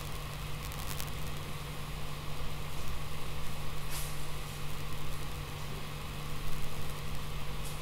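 Steady background hum and hiss picked up by the recording microphone, with a few faint clicks near the start and a soft tick about four seconds in.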